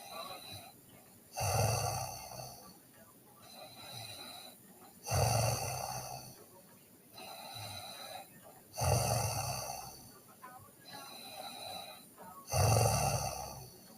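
A sleeping teenage girl snoring in a regular rhythm: four loud snores about four seconds apart, each fading away, with a quieter breath between them.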